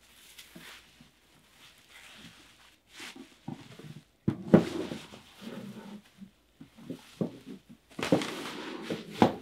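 Bubble wrap crinkling and rustling in uneven bursts as it is pulled off a clear acrylic enclosure, with a couple of sharper knocks of the acrylic box being handled, one about halfway through and one near the end.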